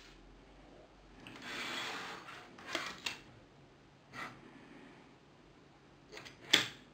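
Handling noise from a plastic Lego locomotive being turned over on a wooden table: a soft rustle about a second and a half in, then a few light clicks and knocks, the sharpest near the end.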